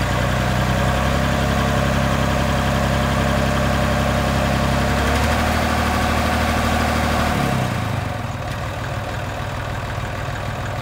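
Massey Ferguson 30B tractor loader's engine idling steadily and smoothly, then winding down and stopping about three-quarters of the way through.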